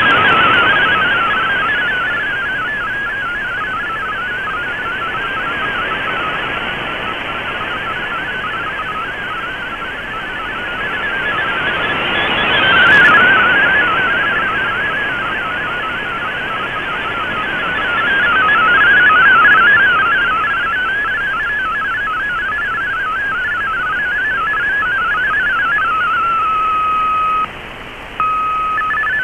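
MFSK32 digital data signal of the Shortwave Radiogram broadcast, received on shortwave at 11580 kHz through an Icom IC-R8600: a rapidly warbling cluster of tones over band hiss, swelling and fading with the signal. Near the end the warbling stops at the end of the message and a single steady tone holds, breaks off briefly, then the data tones return.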